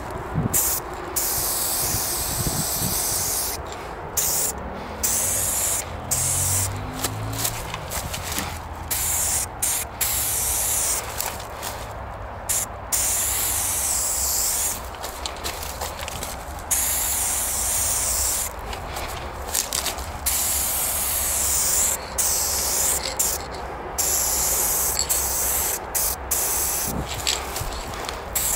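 Aerosol spray-paint can hissing in repeated bursts, stopping and starting every second or two as graffiti is sprayed.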